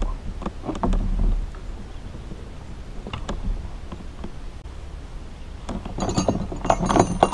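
Fishing gear being handled: scattered light knocks and clicks, then a quick run of sharp metallic clinks near the end.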